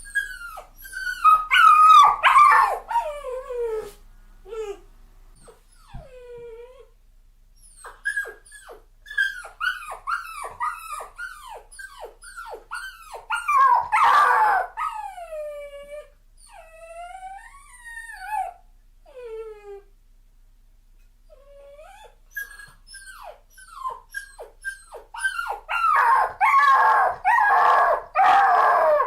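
Puppy crying: a long series of short, high-pitched whimpers and whines, each falling in pitch, coming in bouts with brief pauses and loudest near the start, in the middle and near the end.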